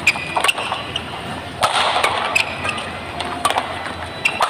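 Badminton rally: rackets striking the shuttlecock in a quick exchange of sharp hits, with short high squeaks from shoes on the court floor between them.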